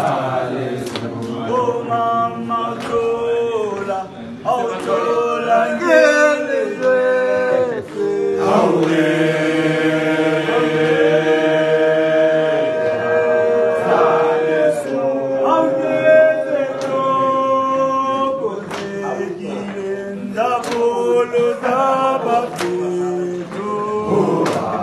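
A group of men singing together without instruments, holding long notes in harmony, with sharp hits running through the song.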